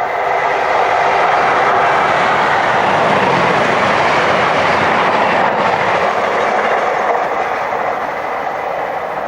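Electric locomotive-hauled train passing at speed: a loud, steady rush of wheel and rail noise with some clickety-clack that builds in the first second and fades over the last two.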